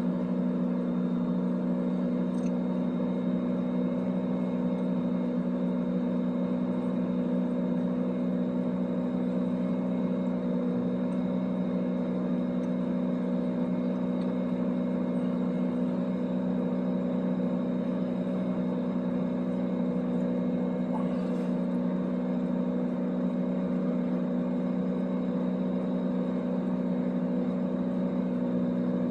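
1998 Chevy S10 engine held at a steady high rpm with the throttle wide open, during a scan-tool crankshaft position relearn procedure.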